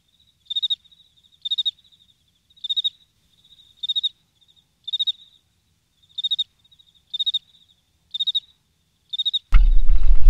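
A cricket chirping steadily, one short pulsed chirp about every second. About nine and a half seconds in, a loud low rumble starts suddenly and drowns it out.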